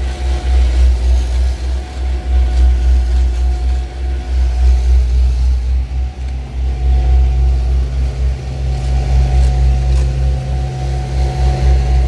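A steady low engine rumble, a motor running at idle, under the faint scrape of rakes dragging loose hot-mix asphalt.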